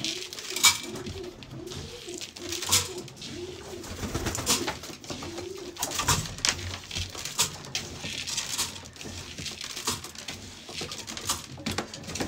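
Racing pigeons cooing: a run of low coos, each rising and falling in pitch, through the first half, with scattered sharp taps and clicks throughout.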